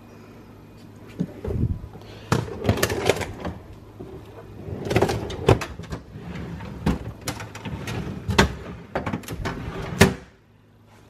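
Household items being handled and set down: a busy string of knocks, bumps and clatters for about nine seconds that stops suddenly near the end.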